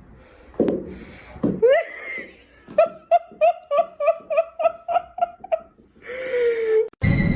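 A person laughing in a rapid, even run of 'ha-ha' pulses, about four or five a second, starting about three seconds in. Near the end the sound cuts abruptly to a steady high-pitched drone.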